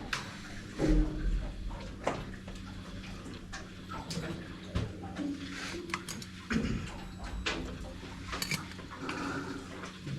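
Cabin sounds of a dome fishing boat: a steady low hum with scattered small clicks and knocks.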